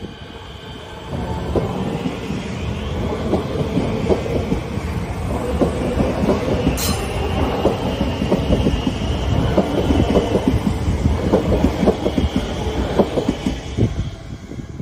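Siemens Nexas electric suburban train passing close by, its wheels clattering over the rail joints in a steady run of knocks. The sound grows louder about a second in and falls away near the end as the last car goes by.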